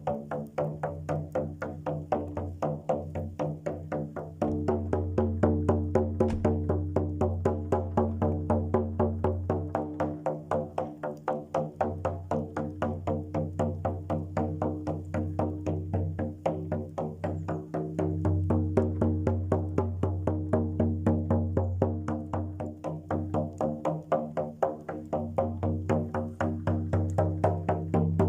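Music: a fast, even pulse of struck notes over sustained low tones that shift every few seconds.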